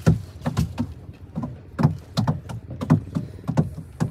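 Water splashing in a quick, uneven series of strokes, about three a second, with a short pause about a second in.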